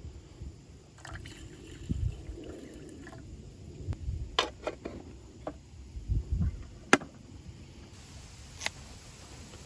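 Water sloshing and trickling in an aluminium mess tin, with scattered light metal clinks and a few soft thuds as the tin is handled.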